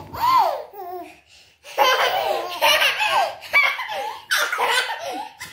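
A baby laughing in repeated bursts, with a short pause a little over a second in, mixed with other laughter from people around him.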